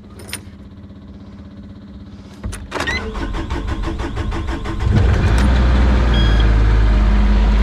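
Mini excavator's diesel engine cranked by its starter for about two and a half seconds, then catching about five seconds in and running steadily. It is started to check an engine fault, and it sounds good on starting.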